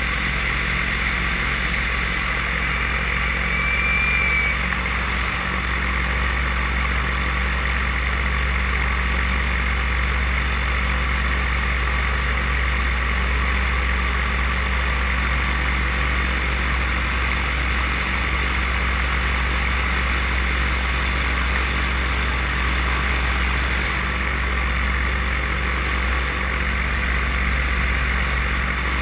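Paramotor engine and propeller running at a steady cruising throttle in flight, mixed with wind rushing over the camera.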